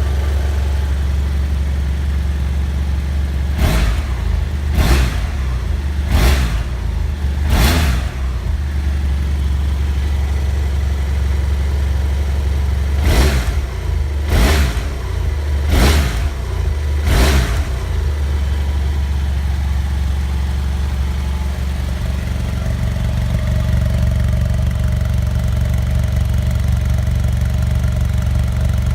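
2014 BMW F800 GS Adventure's parallel-twin engine idling through its stock exhaust, with two sets of four quick throttle blips, each rising and falling, about a second and a half apart.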